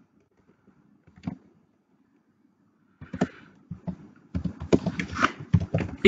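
Computer keyboard typing: a lone keystroke about a second in, then a run of quick keystrokes from about three seconds in, coming fastest near the end.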